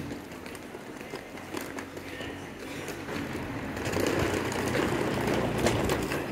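Steady hum in the terminal with scattered light clicks of footsteps, then about four seconds in, after passing out through the exit doors, the background grows louder with the running engines of the buses at the stops and passing traffic.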